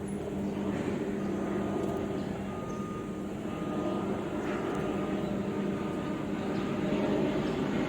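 Airbus C295 military transport's twin turboprop engines running steadily as it comes in to land, with a thin whine above the drone for a few seconds in the middle and the sound growing slightly louder near the end.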